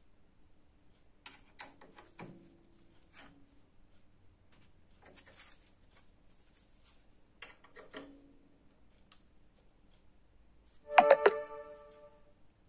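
Flash butt welding machine welding the ends of a band saw blade: a few faint clicks, then, near the end, a brief loud crackling buzz with several sharp snaps that dies away within about a second.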